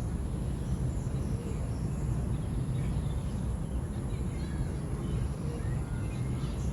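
Steady low outdoor rumble, with faint short high chirps now and then.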